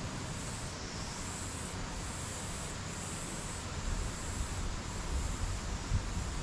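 Steady outdoor background hiss with no animal calls standing out; from about four seconds in, irregular low rumbles and bumps on the microphone join it.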